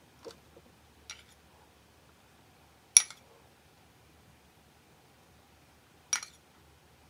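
Metal spoon clinking sharply against a dish twice, about three seconds in and again about six seconds in, with a short ring after each; a couple of fainter taps come earlier.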